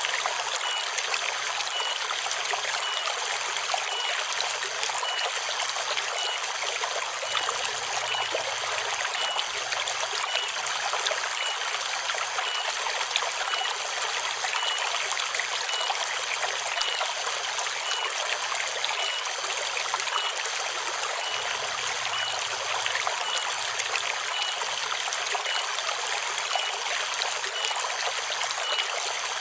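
Forest stream flowing and trickling over rocks, a steady unbroken rush of running water.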